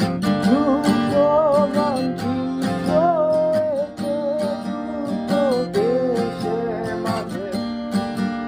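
Acoustic guitar strummed in a steady rhythm, with a man's voice singing a melody over it.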